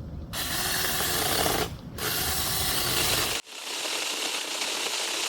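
Small cordless electric chainsaw (Huing 6-inch) with its chain running and cutting through a small tree limb. It starts about a third of a second in, stops briefly near the halfway point, then runs on steadily.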